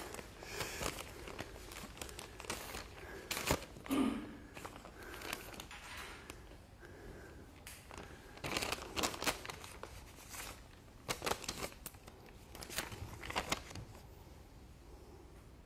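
Paper or tissue crinkling and rustling as it is handled, in irregular bursts with a few sharper crackles; it dies down near the end.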